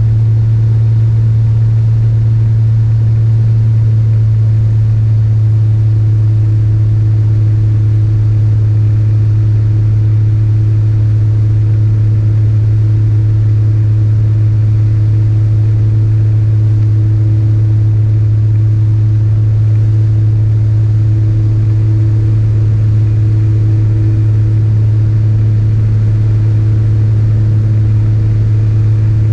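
Single-engine light aircraft's piston engine and propeller running steadily in flight, a constant loud low drone heard inside the cockpit.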